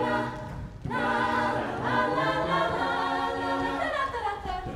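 Mixed-voice a cappella group singing held chords without words, with a short break about a second in before the next chord and a falling slide in the voices near the end.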